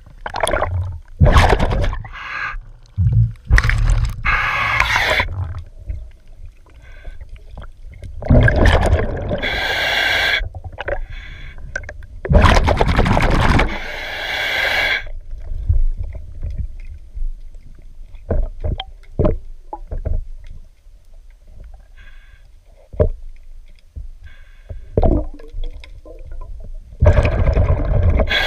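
Underwater sound of a diver's breathing through a regulator: a rush of exhaled bubbles comes every few seconds. Between the bubble bursts there are scattered short clicks and scrapes against the hull.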